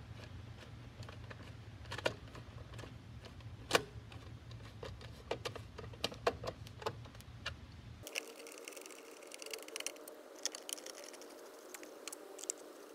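Scattered clicks and ticks of a plastic cover being fitted onto a remote control box and its four screws being tightened. A low background hum gives way to a higher one about eight seconds in.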